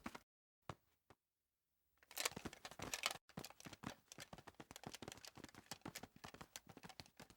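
Cartoon sound effect: a short stretch of rustling, then a long run of rapid, irregular clicks and taps.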